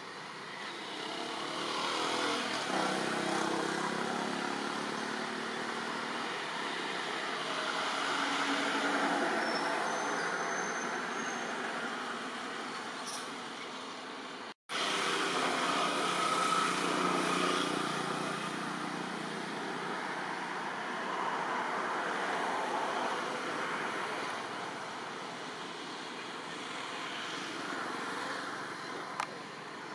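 Road traffic passing: a steady rush of vehicle noise that swells and fades every few seconds, cutting out for an instant about halfway through.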